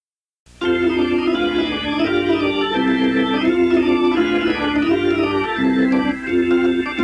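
Organ music with held chords and a melody over them, starting about half a second in after a brief silence.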